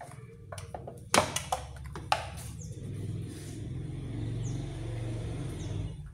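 A quick run of sharp plastic and metal clicks and knocks in the first two seconds, the loudest about a second in, as the Honda Brio's air filter housing is handled and its bolts are worked with a T-handle socket wrench. A steady low rumble runs underneath throughout.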